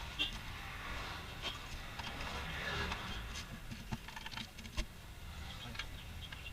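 Scattered light clicks and taps of hand work on scooter kick-starter parts, a cluster of them about three and a half to five seconds in, over a low steady rumble.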